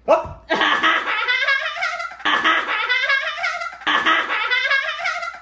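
A short edited-in musical sound effect played three times in a row, each run about one and a half to two seconds long, with a sharp knock right at the start.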